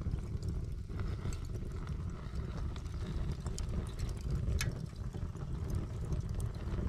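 Charcoal barbecue being lit with fire lighters, flames burning close by: a low fluttering rumble with scattered faint crackles.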